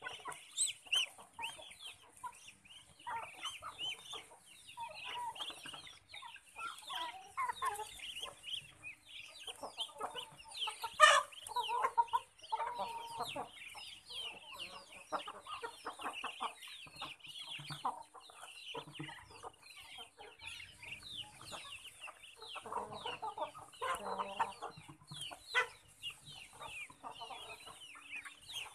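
A flock of chickens clucking among a constant chorus of high, short, falling peeps from ducklings as the birds feed. A single sharp knock stands out about eleven seconds in.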